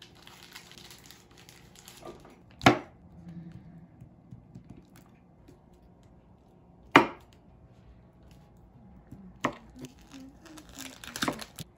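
Plastic packaging crinkling, then a chef's knife chopping down through a stack of cheese slices onto a wooden cutting board: two sharp, loud knocks a few seconds apart, then several lighter chops near the end.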